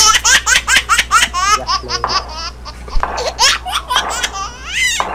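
A baby's high-pitched giggling laughter in quick bursts, several a second, with a few rising squeals near the end.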